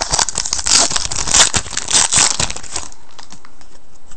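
Foil wrapper of a 2010 Crown Royale football card pack being torn open and crinkled: a dense crackling that stops about three seconds in, followed by a few light clicks as the cards are handled.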